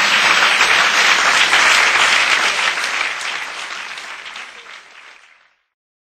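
Live audience applauding at the end of a song; the clapping is loud for about three seconds, then fades away and is gone shortly before the end.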